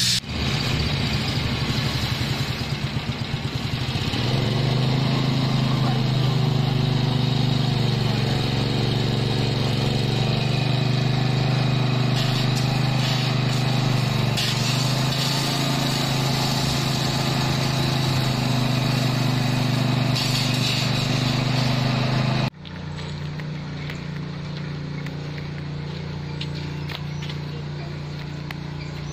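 Engine of heavy road-construction machinery running steadily, its pitch rising and falling a little in the first several seconds. It cuts off abruptly about three-quarters of the way through and gives way to a quieter, steady engine hum.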